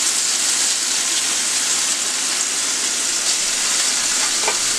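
Beef steaks sizzling steadily in hot oil in a frying pan over medium heat.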